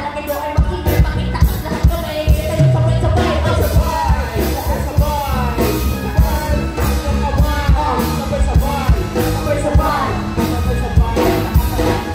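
Live band music through a PA: drums and electric guitar playing with vocals over them.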